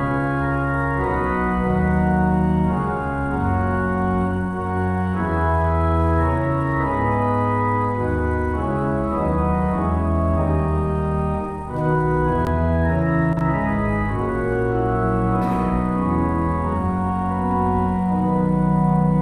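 Church organ playing a postlude at the close of the service: full, sustained chords over a deep bass, the harmony changing every second or so.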